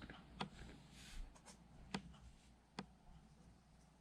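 Near silence broken by about four faint taps of small plastic toy pieces being handled.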